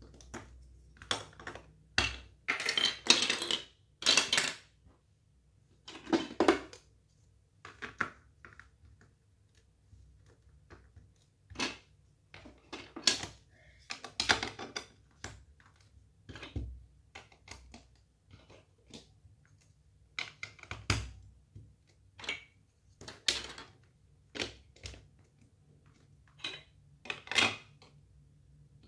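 Plastic LEGO Duplo bricks clicking and clattering as they are handled and pressed onto a Duplo baseplate: irregular sharp clicks, with several short rattling stretches.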